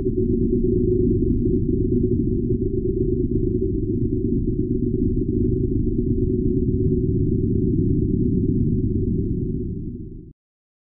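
Steady low drone with nothing above the bass and a few held tones in it, fading and then cutting off about ten seconds in.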